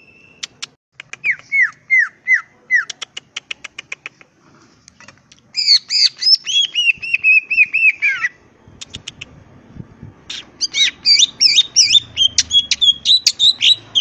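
Male greater green leafbird (cucak ijo) singing in three loud bursts. The first is a run of rapid clicking notes with four falling whistles, the second a fast phrase of repeated looping notes, and after a short pause a third quick run of notes near the end.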